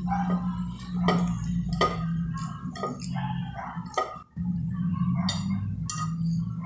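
Metal fork clinking and scraping against a glass plate of rice and beans, several sharp clinks a second or so apart, with wet chewing sounds between them.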